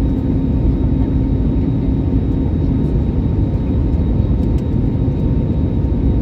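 Airliner cabin noise during descent: the steady roar of the engines and rushing air, heaviest in the low end, with a steady low hum running through it.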